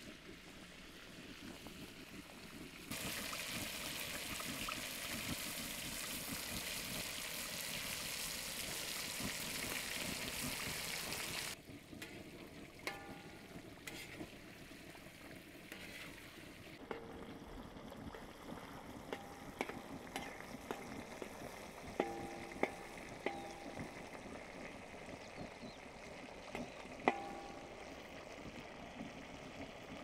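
Food sizzling loudly in a metal frying pan, a steady hiss that starts and stops abruptly. Afterwards it is quieter, with a metal spatula scraping and tapping the pan, giving short ringing clinks, a few sharp ones near the end.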